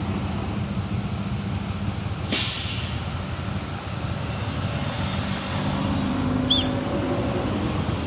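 Street traffic: vehicle engines running and a car driving past, with a sudden loud hiss of air lasting under a second about two seconds in.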